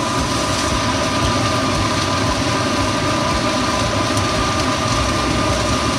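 Steady machine hum with a constant hiss, like a fan running, holding one level throughout; a few faint ticks sound over it.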